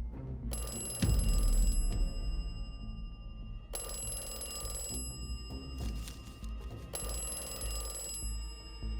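Telephone ringing: three rings of about a second and a half each, with pauses of about two seconds between them, over low background music that has a heavy low hit about a second in.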